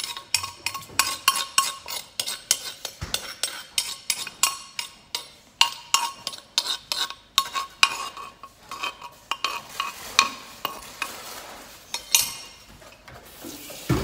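A utensil stirring and scraping inside an earthenware jar: quick, ringing clinks about three or four a second, thinning out after about ten seconds, with a dull bump at the end.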